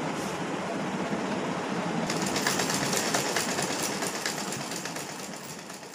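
Domestic sewing machine running at speed, its needle and feed clattering rapidly as it stitches an overlock-style edge on a regular machine. The clatter grows louder and sharper about two seconds in, then fades away near the end.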